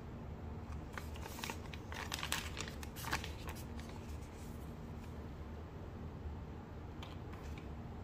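Foil sheet-mask sachets crinkling as they are handled, in a cluster of crisp crackles about a second to three and a half seconds in and briefly again near the end, over a steady low hum.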